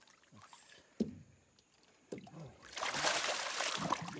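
Water splashing and sloshing, getting louder near the end, with a single sharp knock about a second in.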